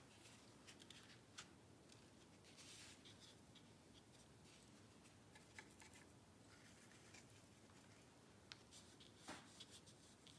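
Near silence, with faint swishes and scratches of a watercolor brush on paper and small clicks from the palette.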